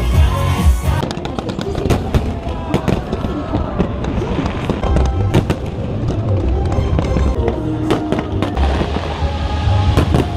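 Fireworks going off in quick succession, many sharp bangs and crackles, over music.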